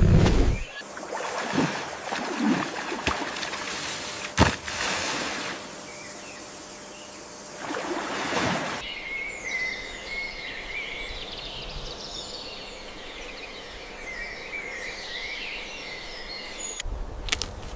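Outdoor ambience with a few sharp knocks, then birds chirping through the second half.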